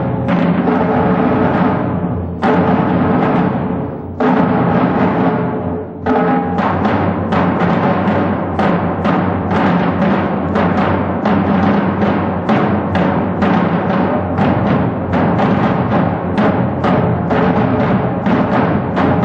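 High school concert band playing a loud passage with timpani and percussion. Full sustained chords are punctuated by heavy accents, then from about six seconds in the band drives a steady pulse of accented strikes, about three a second.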